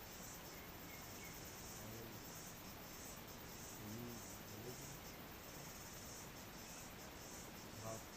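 Insects chirping in a continuous run of short, high-pitched pulsed bursts, with a few faint low wavering calls underneath and a small click near the end.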